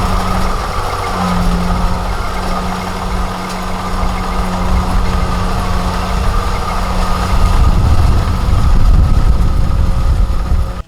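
Diesel engine of a Kubota DC70 Plus rice combine harvester working to get the machine out of deep mud: a steady engine drone that grows louder about seven and a half seconds in.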